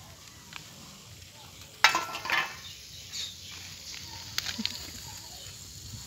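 Shovelful of sand thrown onto a wire-mesh sand screen: a sudden loud hit about two seconds in, then a short rattling hiss as the sand sifts through the mesh. A few lighter taps and scrapes follow.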